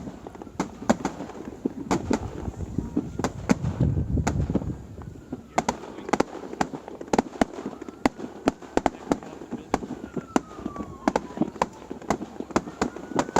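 Fireworks display going off: a rapid, uneven string of sharp bangs and crackling pops, several a second, over a low rumble, with a few faint whistles sliding in pitch.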